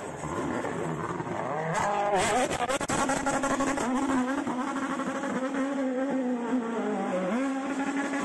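A World Rally Car's turbocharged engine revving hard through a corner, its pitch falling and climbing with the throttle and gear changes, with a run of sharp pops about two seconds in.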